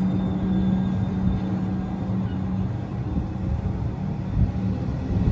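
Comeng suburban electric train rolling slowly past along the platform: a low rumble of wheels on rail with a steady motor hum that fades about halfway through, and a couple of knocks near the end.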